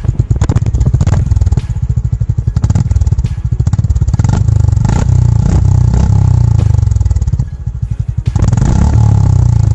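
Honda GB350's 348 cc air-cooled single-cylinder engine running, its exhaust firing pulses coming through one by one as the revs rise and ease. The engine drops off briefly about three quarters of the way through, then picks up again.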